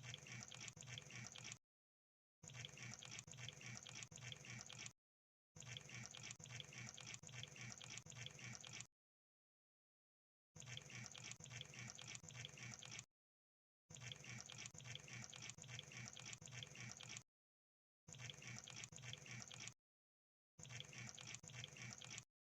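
Crab sound effect: faint bursts of rapid crackling clicks, seven of them, each lasting a couple of seconds and broken off by dead silence.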